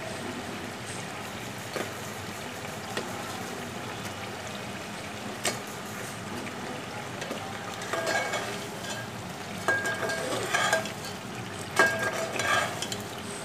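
Spice masala sizzling in hot oil in a metal pot, with a few sharp clicks. From about eight seconds in, a metal slotted spoon scrapes and stirs in the pot in short bursts as fried moong dal badas are mixed in.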